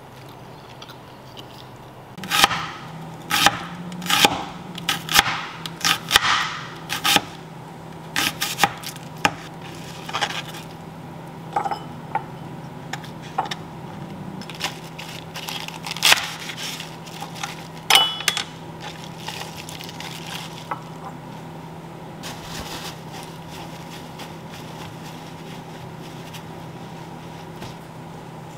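Kitchen knife slicing red onion on a plastic cutting board: sharp, irregular knocks of the blade on the board, about one a second, stopping a little past halfway. A steady low hum runs underneath.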